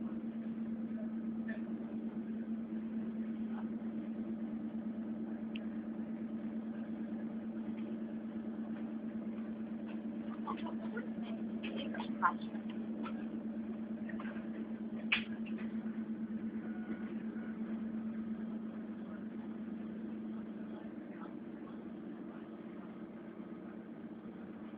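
Steady low hum of a public transport vehicle running, heard from inside, slowly fading near the end. A few faint clicks and two short sharp knocks about halfway through.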